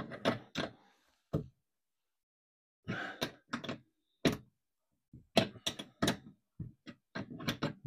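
Open-ended spanner clicking and knocking against a bronze bolt on a Blakes seacock's top plate as the bolt is worked down in short turns, a scattered series of light metal clicks that come thicker in the second half. The bolt is stiff to turn because dirt was left in the female thread.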